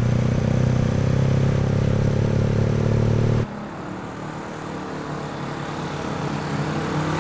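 Sidecar motorcycle engine running steadily, heard close up. About three and a half seconds in it drops to a more distant sound, which grows louder as the motorcycle approaches.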